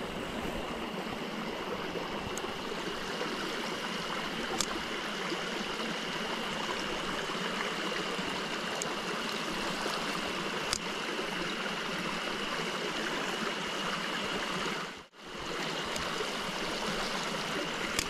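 Small rocky mountain stream running and babbling over stones in shallow riffles, a steady rush of water. The sound briefly drops out about fifteen seconds in.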